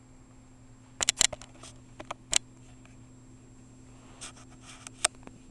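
Bengal cat playing right at the camera: several sharp clicks and scuffs about a second in and again around two seconds, then a soft rustle and one last click as the cat's fur and paws brush against the camera.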